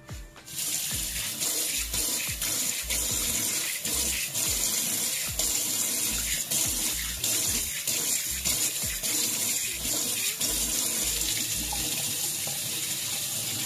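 Kitchen tap running water into the sink, a steady rushing hiss that starts about half a second in.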